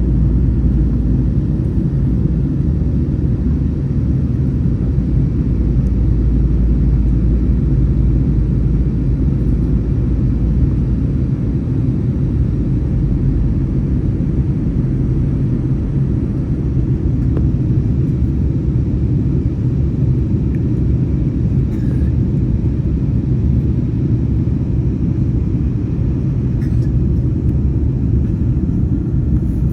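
Steady low rumble inside the cabin of a jet airliner: engine and airflow noise, without a break.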